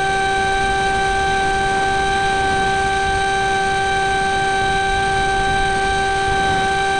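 Electric motor and propeller of an RC flying wing (a Flying Wings Slipstream) running at steady throttle: a constant whine that holds one pitch, with wind rushing over the onboard camera's microphone.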